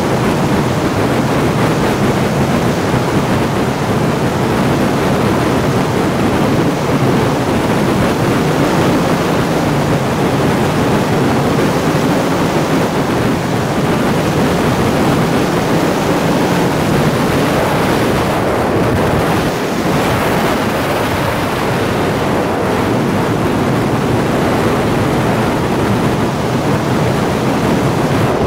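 Steady rush of wind buffeting the microphone, mixed with the rolling noise of a Buggy Rollin wheeled suit's inline-skate wheels on asphalt during a fast downhill run.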